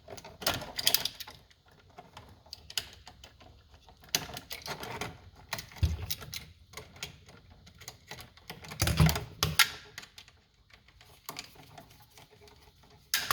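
Irregular small clicks and scrapes in scattered clusters from a wall switch's screw terminals and wires being worked by hand, as a wire is fitted and the terminal screws are tightened.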